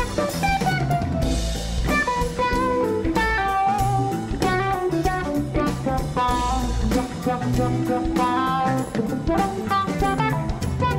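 Instrumental band music: guitar playing melodic lines over a busy drum kit beat.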